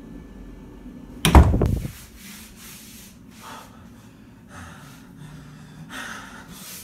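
Handling noise from a handheld camera being carried: rubbing and rustling against the microphone. One loud rub comes about a second in, followed by several softer swishes and scuffs.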